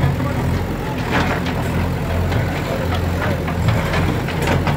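Diesel engines of JCB backhoe loaders running steadily, with a few short sharp knocks over the engine sound.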